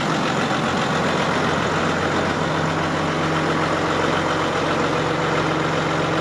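New Holland TM120 tractor's diesel engine idling steadily.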